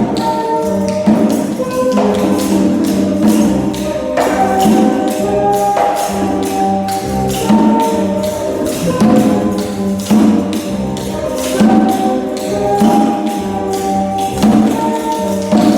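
Percussion music: quick, dense tapping strokes over a repeating pitched melody that moves in short phrases.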